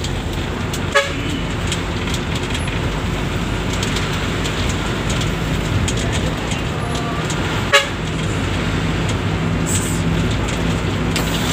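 Bus engine and road noise running steadily, with two short horn toots, one about a second in and one near eight seconds.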